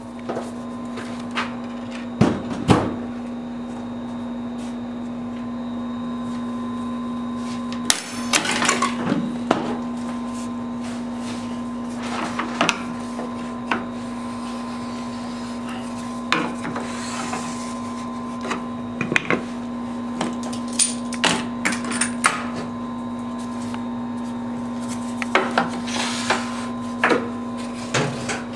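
Wooden blocks and metal clamps knocking and clattering on a workbench in irregular clusters, over a steady machine hum.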